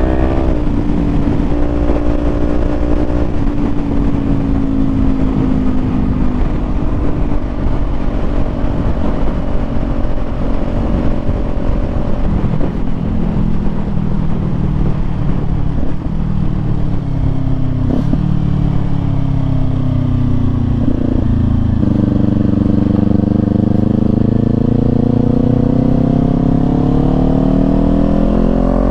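Kawasaki Z400 parallel-twin engine running under way, with wind rumble. The revs ease off and drop in steps through the first part, then climb in one long rise over the last several seconds as the bike accelerates.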